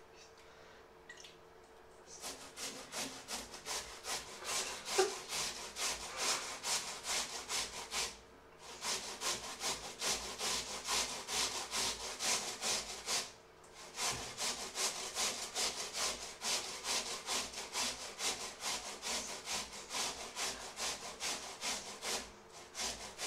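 Potatoes being grated on a metal box grater: steady back-and-forth rasping strokes, about two to three a second. It starts about two seconds in, pauses briefly twice as a new potato is taken, and stops just before the end.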